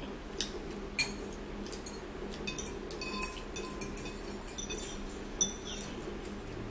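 Metal fork and spoon clinking and scraping against ceramic bowls while eating, in a string of light, irregular clinks, some ringing briefly. The loudest clink comes a little after five seconds in.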